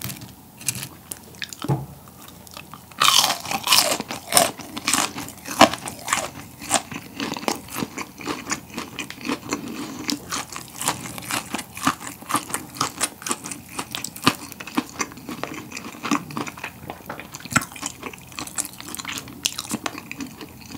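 A person biting into a crisp breaded fried pork cutlet (tonkatsu) and chewing it close to the microphone. There is a loud crunch about three seconds in, then a long run of crackling crunches as the breading is chewed.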